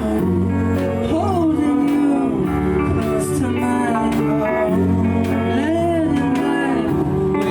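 Music: a song with a singing voice over guitar, bass and a steady beat, in a blues or country style.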